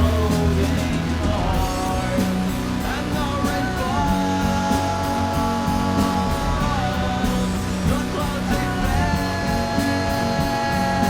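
Home-recorded rock song from a four-track cassette tape: bass and drums under long held notes that slide between pitches.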